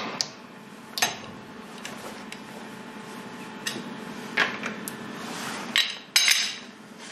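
Sharp metal clinks and knocks of a breaker bar and socket on the front wheel bolts as the wheel is unbolted, about five strikes with a short ring after each.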